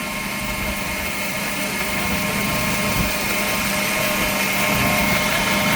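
Steady running of a shop machine's motor: an even hum with a hiss over it, getting slowly louder.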